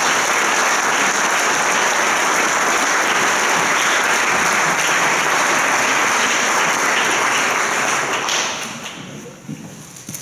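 Audience applauding, steady and loud, then dying away near the end.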